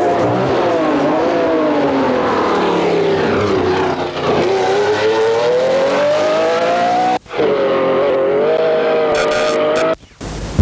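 Ferrari sports car engine running hard on a racetrack; the pitch dips, then climbs steadily as it accelerates. The sound drops out briefly about seven seconds in and again near the end, with tape glitches.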